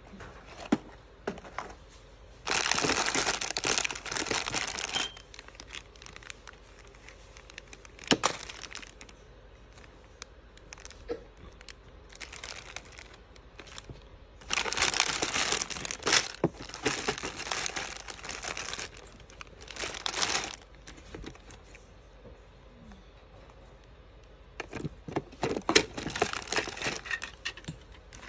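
Plastic bags of Lego bricks crinkling in several bursts as they are handled, with scattered sharp clicks and knocks of hard plastic parts. A quick run of clicks and knocks comes near the end.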